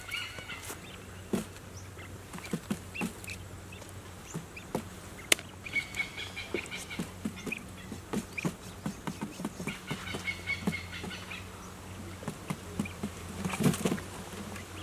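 Quail pecking at grain on cardboard and dirt, a stream of small irregular taps, over a steady low buzz. Near the end a bird gives a brief flutter of its wings.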